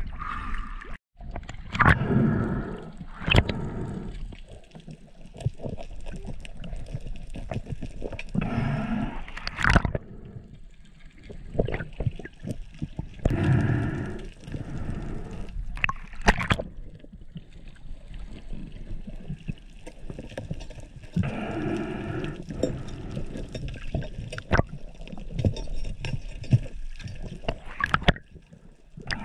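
Sea water gurgling and sloshing around a diver's action camera as it moves at and below the surface, swelling into louder surges every several seconds, with a few sharp clicks.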